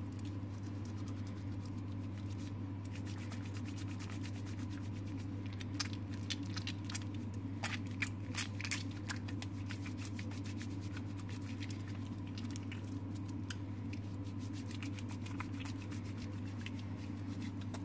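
Wet, soapy hands rubbing and scrubbing together, with soft squelches and small crackling clicks, busiest in the middle stretch, over a steady low hum.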